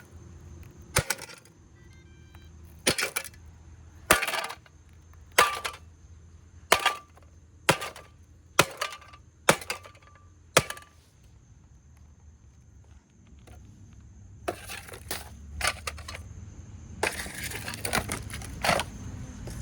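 A Roomba robot vacuum's hard plastic body is struck hard about ten times, roughly once a second, the blows coming closer together after about eight seconds. After a pause there is softer clattering and scraping of loose parts near the end.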